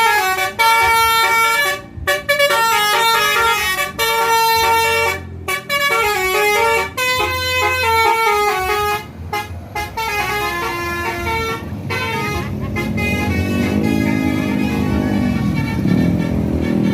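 A bus's multi-tone Basuri 'telolet' horn playing a fast melodic tune, its notes stepping up and down with short breaks, for about twelve seconds. After that the bus engine is heard, its revs rising and falling.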